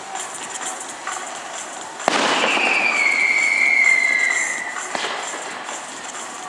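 Fireworks display: scattered crackling, then a sharp bang about two seconds in followed by dense crackling and a long whistle that slowly falls in pitch before fading.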